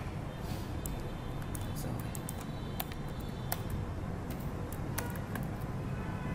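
Irregular computer keyboard keystrokes and mouse clicks as code is typed into an editor, over a steady low hum.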